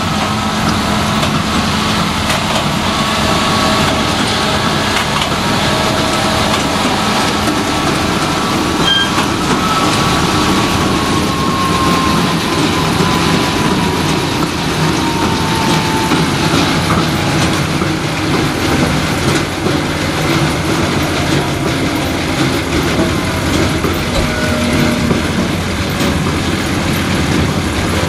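A John Deere tractor running with a large square baler and wrapper in tow, giving a steady, dense mechanical noise. Faint whining tones slowly fall in pitch partway through.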